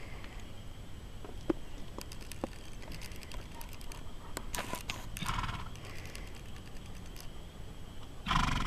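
Light clicks and clinks of a western saddle's buckles and hardware being handled on a pony, with a short rushing burst about five seconds in and a louder one just before the end.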